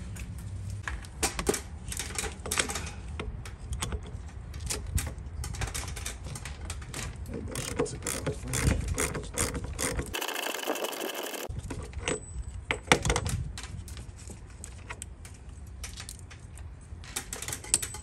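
Ratchet clicking and metal tools clinking as a 1-1/16 deep socket works loose an oil pressure sending unit on an engine with its intake removed. The clicks are irregular and sharp.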